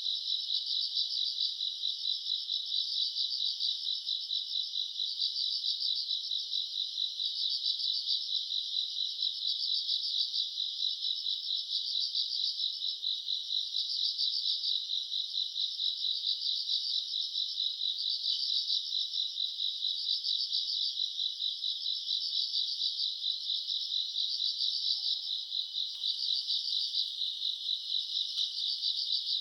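Night chorus of grass insects such as crickets, chirping continuously in a high-pitched trill that swells in a slow, regular beat.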